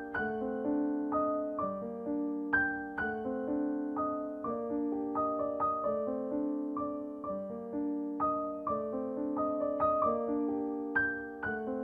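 Background piano music: a gentle melody of single notes, about two a second, each struck and left to fade.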